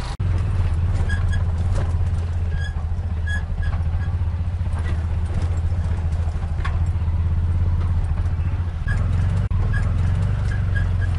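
Bajaj Maxima auto-rickshaw's engine running with a steady low drone as it drives, with scattered short high chirps over it.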